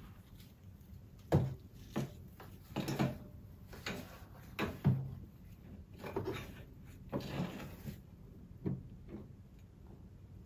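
Handling sounds of a YouTube silver play button plaque and its packaging board being lifted out and set down on a desk: a string of irregular knocks and clunks with rustling between them.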